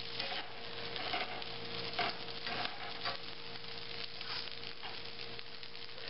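Vermicelli noodles, chicken and vegetables in peanut sauce sizzling in a frying pan, stirred and tossed with a plastic slotted spatula, with repeated scrapes about once a second.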